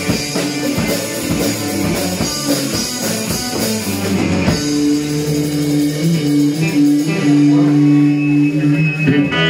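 Live rock band with electric guitar, bass guitar and drum kit playing loud. About halfway through, the drum hits fall away and a held chord rings on, as at the close of a song.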